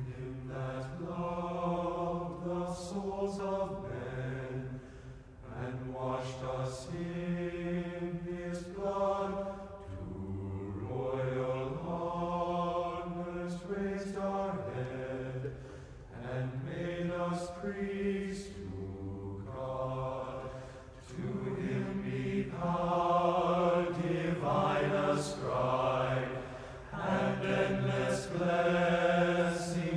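Men's glee club singing unaccompanied, holding full chords in phrases of a few seconds with short breaks between them. The singing grows louder in the second half.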